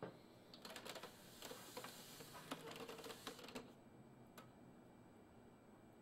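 Light plastic clicks and rattles of hands handling an Epson Artisan 700 printer's case and scanner lid, a quick irregular run over about three seconds.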